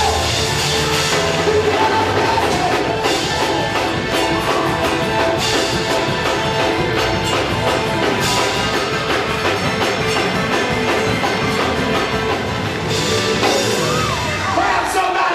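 Lively church praise music with drums and percussion, playing steadily.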